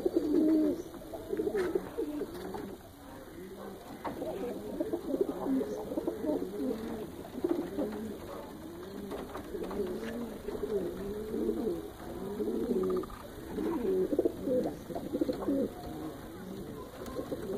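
A loft of caged domestic pigeons cooing, many birds' low rolling coos overlapping without a break.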